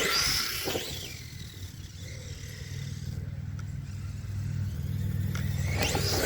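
Redcat Shredder RC monster truck driving hard: a high motor whine rises as it speeds up right at the start and again near the end, with a lower steady drone from the drivetrain in between.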